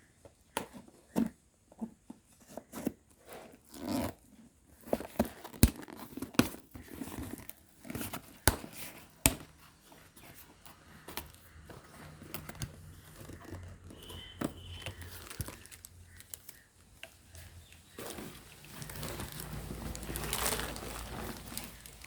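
Packaging being unpacked by hand: a string of sharp knocks and handling noises, then a longer stretch of crinkling and tearing near the end.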